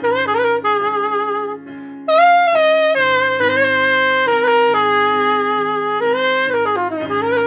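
Alto saxophone playing a slow melody of long held notes over a sustained backing chord. After a short break about two seconds in it comes back on a higher, wavering note, and near the end it slides down in a quick falling run.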